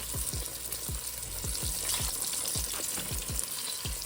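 Breaded chicken fried chicken deep-frying in hot oil, a steady sizzle and crackle.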